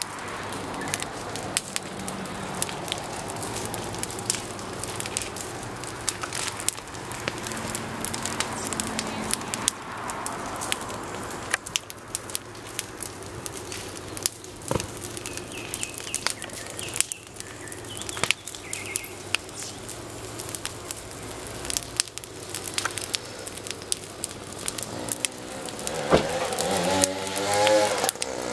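Open bonfire of branches and rubbish burning, crackling with many sharp pops over a steady rush. Near the end a small engine revs up, its pitch rising.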